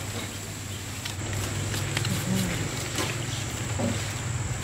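Outdoor market background: a steady low hum and a thin, steady high-pitched whine, with a few faint clicks and faint distant voices.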